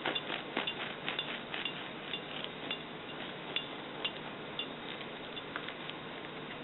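Irregular light clicks and taps from kitchen handling, such as a knife, pan or plate, over a steady faint hiss. They come quickly for the first couple of seconds, then thin out to an occasional tap.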